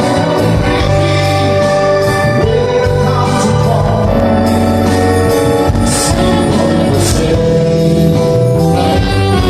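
Live band playing a song with singing over a steady bass line, with two bright crashes about six and seven seconds in.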